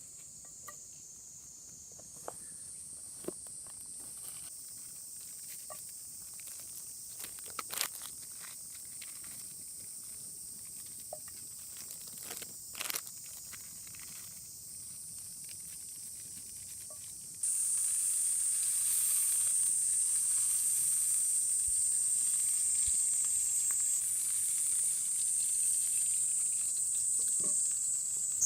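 Skillet cooking over a wood fire: a faint steady hiss with scattered small pops and clicks, then about two-thirds of the way through a louder sizzling starts suddenly and carries on.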